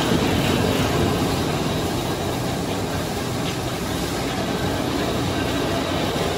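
Overhead bridge crane travelling with a suspended load, a steady mechanical rumble and rattle.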